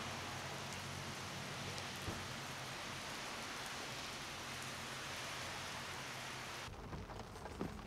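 Steady rain falling on wet pavement, an even hiss with a faint low hum beneath it. Near the end the sound changes abruptly to a quieter patter with a few scattered ticks of drops.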